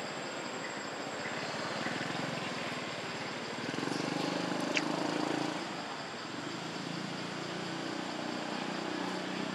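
Steady engine-like rumble that swells about four seconds in, with a single short rising squeak near the middle.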